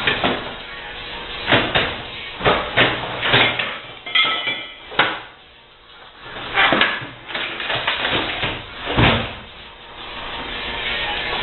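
Irregular knocks and clanks of dishwasher parts being handled and worked apart, about ten sharp impacts spaced unevenly, with a brief ringing tone about four seconds in.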